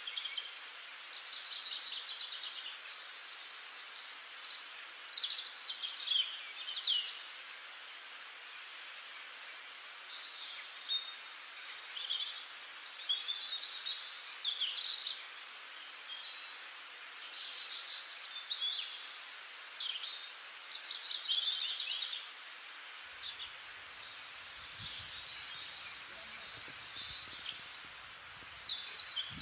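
Songbirds singing, with many short chirps and trills overlapping over a steady faint hiss.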